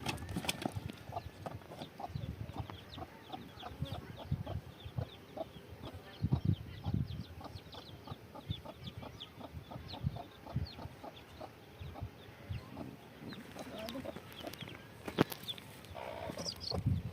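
Chickens clucking, mixed with many short ticks and knocks, and a sharp click about fifteen seconds in.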